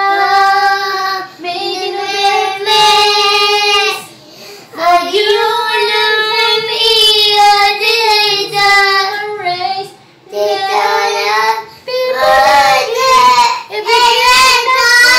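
A young boy and a woman singing a song together without accompaniment, in high, long-held notes with two short breaks.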